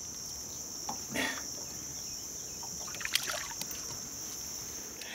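A hooked mullet splashing at the water's surface beside a boat, with a short splash about a second in, then a few sharp clicks and knocks around three seconds in as it is lifted out on the line. A steady high-pitched buzz runs underneath.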